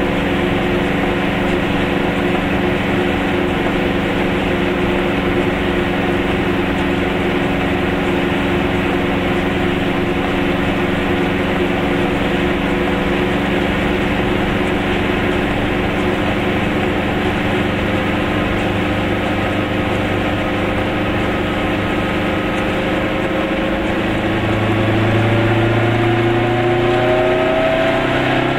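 Goggomobil's small two-stroke twin-cylinder engine running steadily at cruising speed, heard from inside the car. About 24 seconds in the engine note starts to rise as the car picks up speed.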